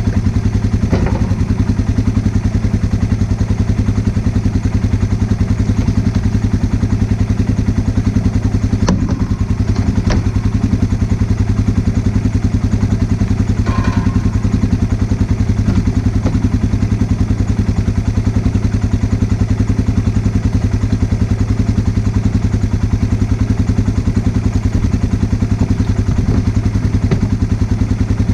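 An engine running steadily at a constant speed, with a few brief knocks and clatters about a third and halfway in.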